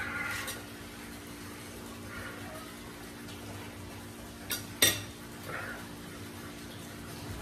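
Metal spoon clinking against a small ceramic soup bowl while eating: two sharp clinks close together about four and a half seconds in, with a few softer spoon and mouth sounds, over a steady low hum.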